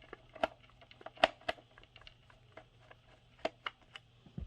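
Scattered light clicks and taps of hard plastic being handled: the battery and the battery-compartment plate of a toy foam dart blaster being fitted, with a few sharper clicks about half a second, a second and a quarter, and three and a half seconds in.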